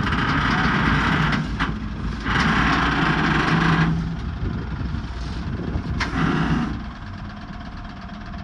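An engine running steadily, with a louder burst of noise about two to four seconds in and two sharp metal knocks.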